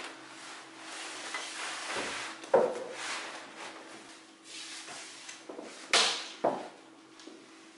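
Clear plastic vacuum-bag sheeting rustling and crinkling as it is lifted and handled, with sharp knocks about two and a half seconds in and again around six seconds.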